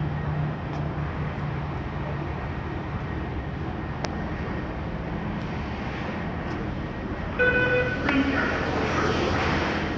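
Car wash equipment running with a steady low hum. About seven seconds in, a tone sounds, followed by a louder rushing hiss.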